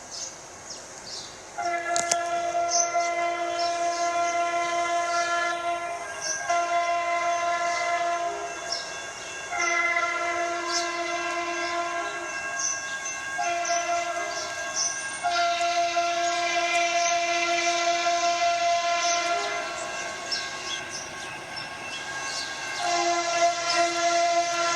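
Air horn of Canadian National diesel locomotive CN 9304 sounding several long blasts with short breaks as the train passes, a chord of steady tones with an odd, weird sound. The first blast comes in about a second and a half in.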